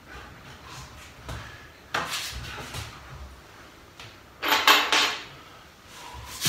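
Handling knocks and clatter: a few dull wooden knocks and a clatter about two seconds in, then a quick, loud cluster of sharp clattering clicks about halfway through.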